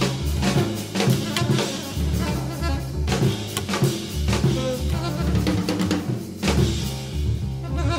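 Background music: a drum kit playing a steady beat over a bass line.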